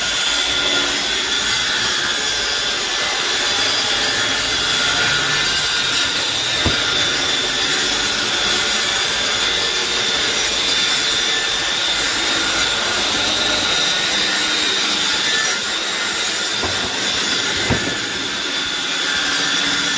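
Steady, loud machine-like noise with a constant high whine, running without a break, with two light knocks, one about a third of the way in and one near the end.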